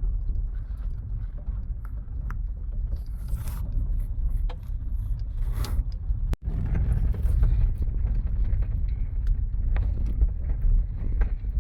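Kia Picanto driving on a gravel road: a steady low rumble of tyres and car on loose gravel, with scattered sharp ticks. The sound breaks off for a split second about six seconds in.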